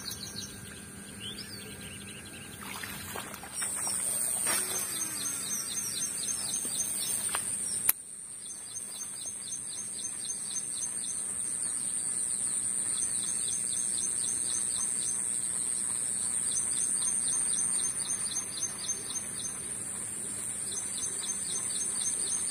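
Birds chirping in rapid repeated trains a few seconds long, over a steady high-pitched whine, with a sharp click about eight seconds in.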